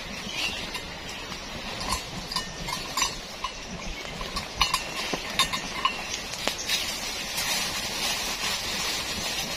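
Wood campfire crackling with sharp pops over a steady high forest hiss, while a string of short calls from an animal comes in roughly the first half.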